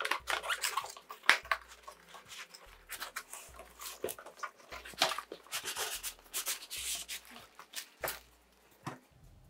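Cardboard soundbar box being opened: a taped end flap peeled back, then cardboard scraping and plastic wrap rustling as the wrapped soundbar is slid out, in irregular scrapes and clicks that pause briefly near the end.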